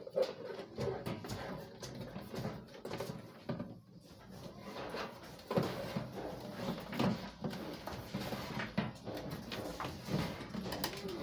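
Clicks and knocks of a receipt printer being set down on top of a cash drawer and its cables handled and plugged in, over a faint, indistinct wavering sound.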